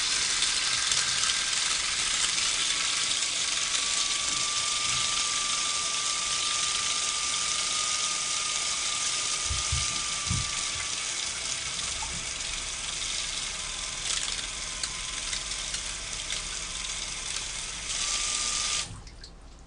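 Water spraying steadily from an LED shower head, an even hiss with a faint thin whistle under it; it cuts off suddenly near the end.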